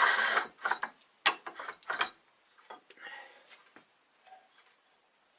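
Clicks, knocks and scrapes of a woodturning gouge and its sharpening setup being handled at a switched-off bench grinder, quick and dense for about the first two seconds, then a few fainter ticks.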